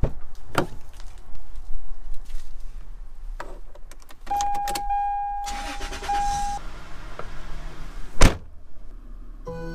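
Toyota Tacoma pickup being unlocked and entered: key and door-latch clicks, then a steady key-in-ignition warning tone for about two seconds as the key goes in, a rush of the engine starting, and the door slamming shut with one loud thud near the end.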